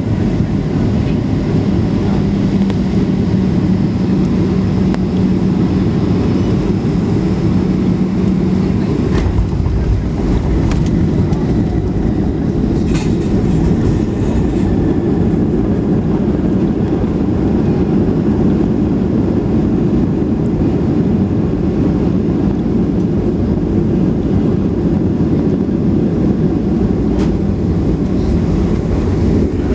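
Steady low rumble inside a jet airliner's cabin as it rolls on the ground after landing: engine noise and wheel and airframe rumble, with a steady hum for several seconds near the start.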